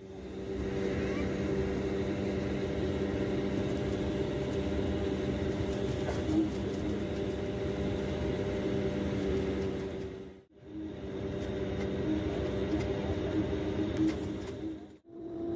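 Cabin drone of a SpiceJet Bombardier Q400's turboprop engines and six-blade propellers: a steady hum with a few constant tones over a rushing noise. It cuts out abruptly about ten seconds in and again near the end.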